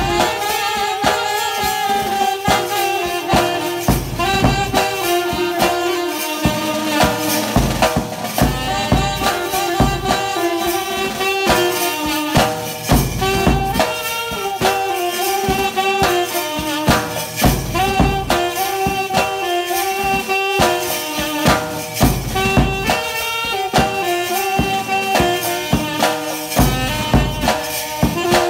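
A small band playing a tune: a reed wind instrument carries a sliding melody over steady snare drum and bass drum beats, with a light jingling percussion.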